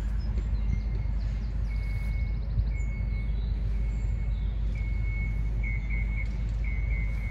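Outdoor ambience: a steady low rumble, with a small bird giving short, high chirps on one pitch that come more often in the second half.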